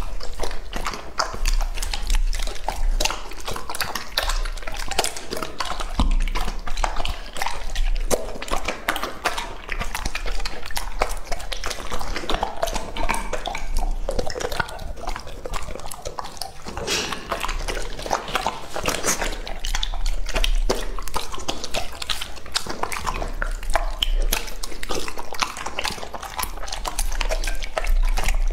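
Close-up of an English-type Labrador Retriever eating soft steamed food from a plate: continuous wet chewing, smacking and licking, with the food and the dog's mouth knocking against the plate.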